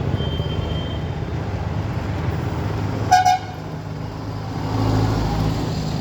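Road traffic running steadily with one short vehicle horn toot about three seconds in, the loudest sound; a vehicle's engine rumble swells a little about five seconds in.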